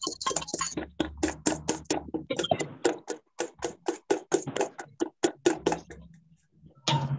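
Egg whites beaten with a spoon in a steel bowl: a rapid, even run of clinks, about four a second, that stops about six seconds in. The egg white is being whisked for clarifying a clear tomato soup.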